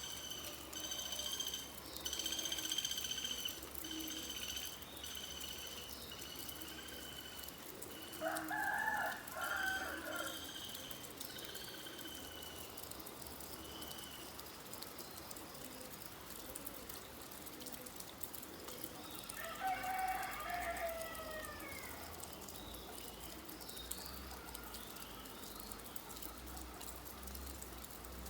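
Steady rain with birds calling: a run of repeated high chirps through the first half, and two longer, lower calls, one about eight seconds in and one about twenty seconds in.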